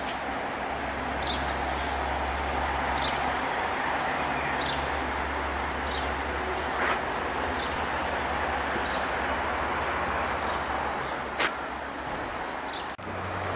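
Outdoor town ambience: a steady low rumble of traffic under an even hiss, with a bird repeating a short high chirp every second or two and a few sharp clicks.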